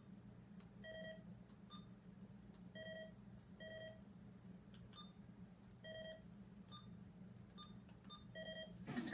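Handheld radio scanner's keypad beeping as its buttons are pressed: about ten short electronic beeps, some lower and slightly longer, others quick higher blips, over a faint steady hum. A brief rustle near the end.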